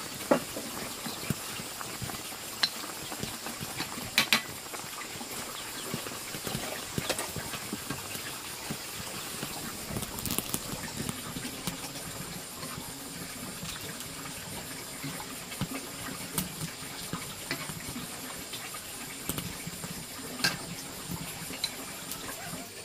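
Noodle soup boiling in a large metal wok, a steady bubbling hiss, with scattered clicks and knocks of a metal ladle against the wok and a ceramic bowl as the soup is served.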